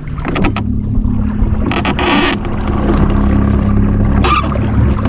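Small boat's motor running with a steady hum under low rumbling noise, and a brief rushing burst about two seconds in.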